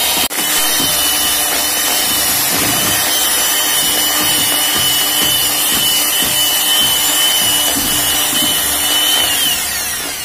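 Electric hand mixer running steadily with a high whine, its beaters whipping cream and powdered sugar into frosting in a plastic bowl. It breaks off for an instant just after the start, and near the end it is switched off, the whine falling as the motor spins down.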